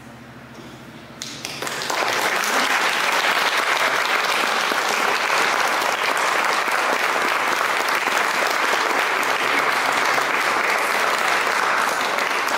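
Audience applause breaks out about a second and a half in, after a quiet start, and goes on steadily.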